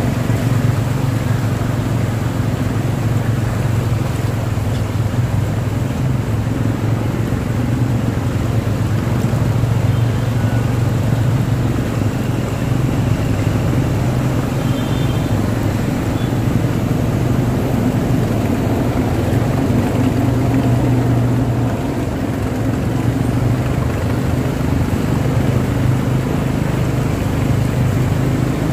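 Steady low rumble of vehicle engines in slow traffic moving through a flooded road, with a constant wash of water churned up around the tyres.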